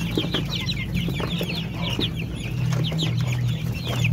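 A flock of young kampung chickens peeping, with many short, high, falling notes overlapping without pause. A steady low hum runs underneath.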